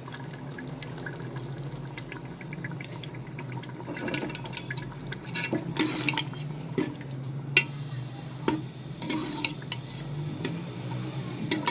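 Melted ghee pouring in a thin stream into a pot of cooked mutton liver and lung, then a steel spoon stirring the thick mixture, knocking and scraping against the pot several times.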